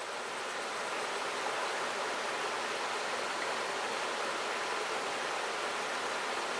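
Shallow mountain stream running over rocks: a steady rushing of water that fades in over the first second or so and then holds even.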